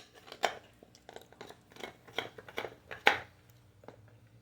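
German shepherd chewing a cow-bone dog treat: irregular hard crunches and cracks, the loudest about three seconds in.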